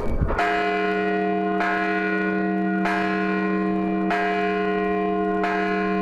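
Large hanging bell struck by its swinging clapper, five strokes about every second and a quarter, each stroke's ring carrying on under the next.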